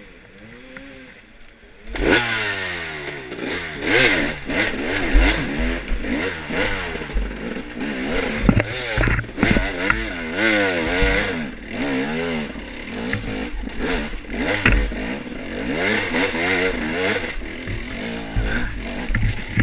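Off-road dirt bike engine ridden on a trail, its pitch rising and falling over and over as the throttle is worked on and off. It is quieter for about the first two seconds, then much louder, with scattered clattering knocks.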